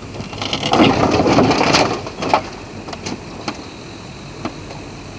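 A wrecked car body tipping over and crashing down onto gravel: a loud crunch of metal and gravel lasting about a second, then a few separate clanks as it settles. A steady low engine hum runs underneath.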